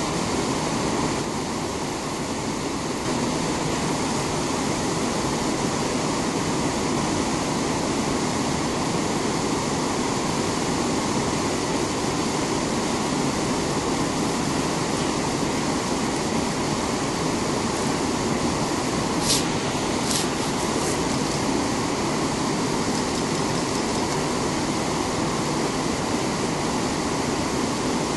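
Waterfall and river rapids rushing in a steady, unbroken roar of water. Two short, sharp high clicks come about two-thirds of the way through.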